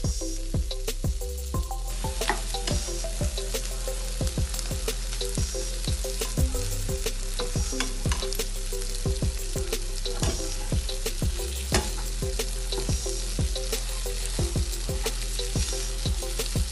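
Shrimp sizzling in a frying pan as melting cheese is stirred in with a metal spoon, with many short clicks and scrapes of the spoon against the pan over a steady hiss.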